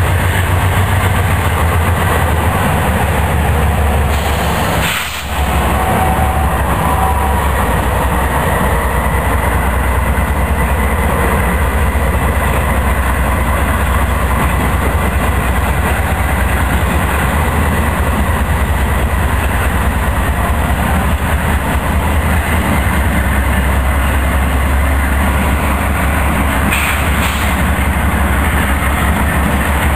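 A string of diesel-electric freight locomotives passing one after another, engines running steadily under load with the train noise continuous throughout. The sound dips briefly about five seconds in.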